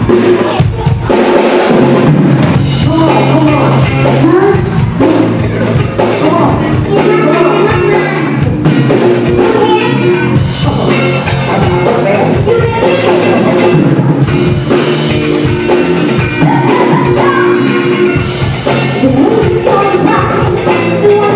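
Live band playing a pop-rock song on electric guitars, bass guitar and drum kit, with vocals.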